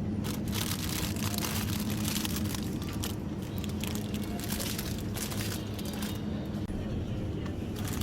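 Plastic packaging crinkling and rustling as it is handled, in irregular crackles over a steady low hum.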